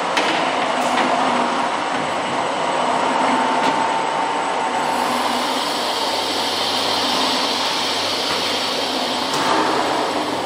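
Steady mechanical running noise of an industrial continuous fryer line, its conveyor and motors, with a few faint clicks. A brighter hiss joins about halfway through.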